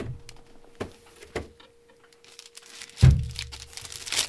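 Handling of a cardboard box and a plastic-bagged camera lens: a few light knocks, a heavy thump about three seconds in, then the plastic bag crinkling near the end as it is pulled off the lens.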